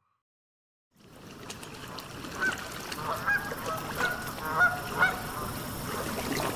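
Black swans calling: about five short, high honking calls spaced half a second to a second apart, over a steady outdoor hiss. The sound starts after a second of silence.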